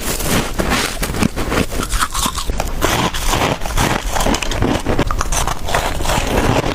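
Close-up crunching and chewing of soft, powdery humidifier frost ice: a dense, continuous run of crisp crackles.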